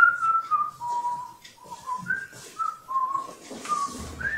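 A man whistling a tune in short held notes that step up and down. Near the end there is a rustle and a low thump as he moves in.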